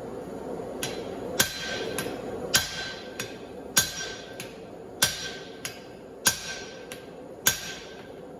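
Blacksmith's hand hammer striking hot steel on an anvil in a steady rhythm: six heavy blows about a second and a quarter apart, each with a lighter tap between, the heavy blows leaving a short metallic ring.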